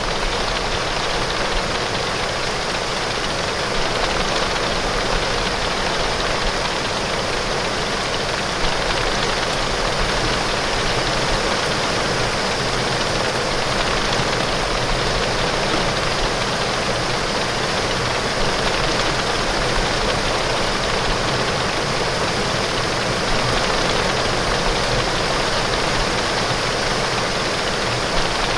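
Heavy rain pouring steadily on window glass: a dense, even hiss that never lets up.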